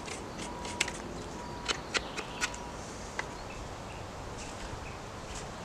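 A few sharp clicks and light rustles of someone moving on dry leaf litter and handling a knife and a wooden stick. Faint short bird chirps sound in the second half.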